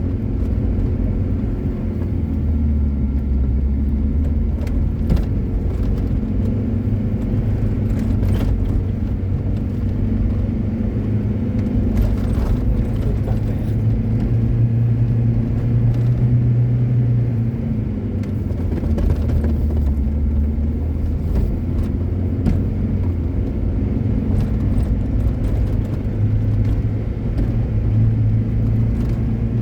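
Car engine running under load, its pitch rising and falling several times as the car pushes through wind-drifted snow, with a few sharp knocks along the way.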